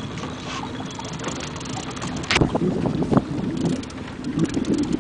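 A boat's motor running steadily, with wind buffeting the microphone and a sharp knock about two and a half seconds in.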